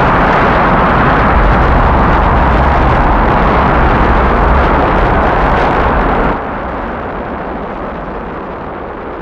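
Clustered rocket engines firing at liftoff: a loud, steady rush of exhaust noise with a deep rumble beneath. About six seconds in it drops suddenly to a quieter, duller rumble, as heard from far off.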